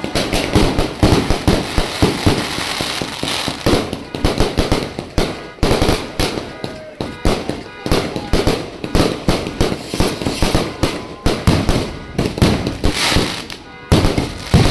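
Aerial fireworks firing in quick succession: shells launching and bursting overhead in a dense run of bangs and crackles with hardly a pause.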